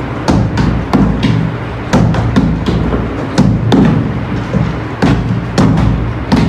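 Partly filled plastic bottles flipped again and again and landing on a cloth-covered table, a quick, irregular run of thuds, with background music playing underneath.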